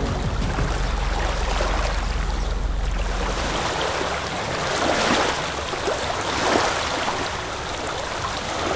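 Sea water sloshing and splashing, swelling about five and six and a half seconds in, over a low rumble that stops about a third of the way through.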